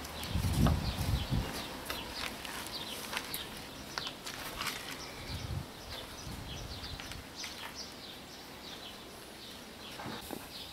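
Outdoor ambience with small birds chirping in short, scattered calls, and a brief low rumble about a second in.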